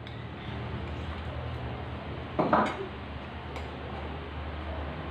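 Spoon and fork clinking and scraping on plates during a meal, with one louder clatter about halfway through, over a steady low hum.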